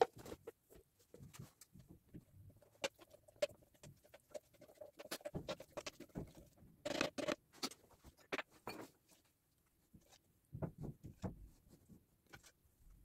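Hands rummaging in a woven plastic sack and working craft materials on the tabletop: scattered light rustles, taps and scrapes, loudest about seven seconds in.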